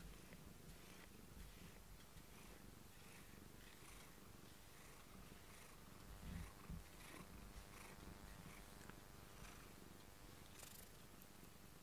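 Domestic cat purring faintly, close up, as it is stroked under the chin.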